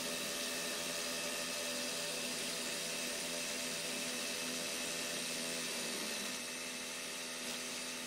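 Two cordless SDS hammer drills, a Hilti TE 4-22 and a DeWalt Atomic, hammer-drilling 1/2-inch holes into a concrete block at the same time, a steady drone. About six seconds in the sound drops a little as one drill stops, leaving the DeWalt, which is struggling a little with the 1/2-inch hole.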